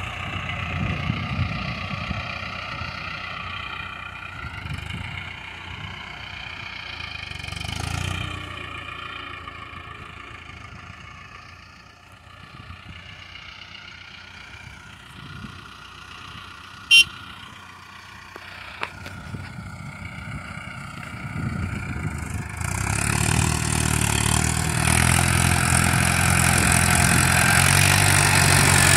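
Tractor engine running with a disc plough, quieter through the middle and much louder from about 23 seconds in. A single sharp tick about 17 seconds in.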